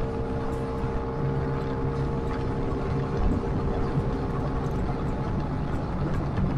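Motorcycle engine running at a steady cruise, under a steady rush of wind and road noise. A higher steady tone in the engine note fades out about five seconds in, while a lower one holds.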